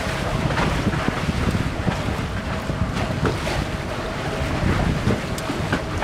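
Wind buffeting the microphone over the steady rush and splash of water along the hull of a Leopard 42 sailing catamaran under way.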